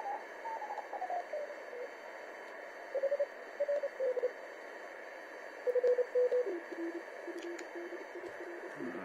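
Morse code (CW) signals received by a homebrew Radioberry SDR transceiver on the 80 m band: short keyed tone beeps over steady band hiss. In the first two seconds the tone slides down in pitch as the receiver is tuned across a signal, and near the end the beeps settle at a lower pitch.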